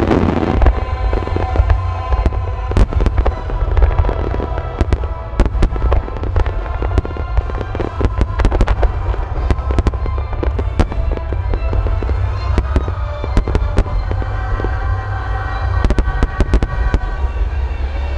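A starmine barrage of fireworks: shells bursting in rapid, irregular succession as dozens of sharp bangs over a continuous deep rumble. Music plays steadily underneath.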